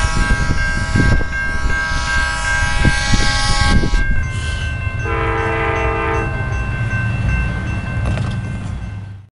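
Railroad crossing with its signal bell ringing over a steady low rumble. A train horn sounds one long chord of several notes held for about four seconds, then a second, lower horn chord for about a second. The sound cuts off suddenly near the end.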